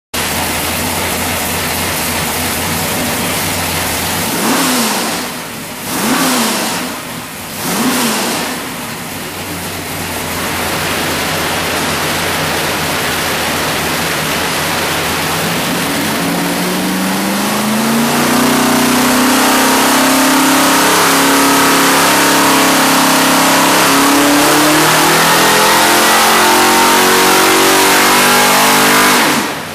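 A 427 cubic-inch Windsor-based small-block Ford V8 stroker with a four-barrel carburettor, running on an engine dyno. It runs steadily, is blipped three times in quick succession, and settles again. Then it makes a long dyno pull, its revs climbing slowly and steadily and getting louder for about thirteen seconds before the throttle is cut abruptly near the end.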